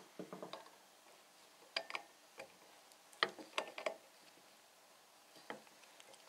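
Faint, irregular clicks and taps of a new gear being handled and worked onto a milling machine's motor shaft over its key.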